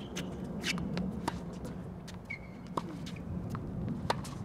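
Tennis rally: tennis balls struck by rackets and bouncing on a hard court, making a series of sharp pops about a second apart, with a short high squeak about two seconds in.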